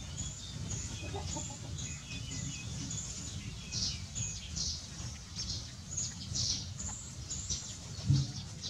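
Birds chirping repeatedly in short high calls, over a steady low rumble, with a single low thump near the end.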